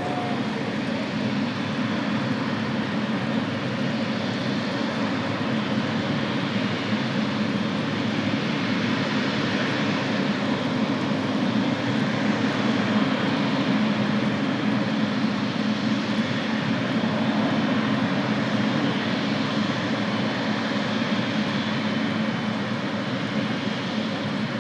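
Jet airliner engines running, a steady noise that swells slightly midway and eases off near the end.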